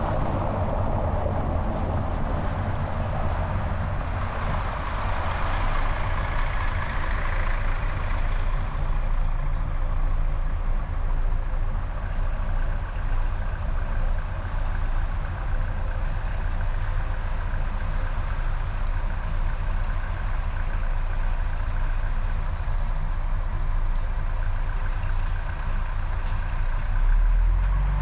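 Steady driving noise of a car at road speed: low engine and tyre rumble with wind rushing over a hood-mounted microphone. The noise swells for a few seconds early on, and a louder low rumble surges just before the end.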